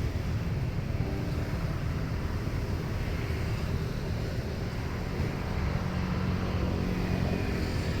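Airliner engines running with a steady low rumble, a few faint steady tones coming in near the end.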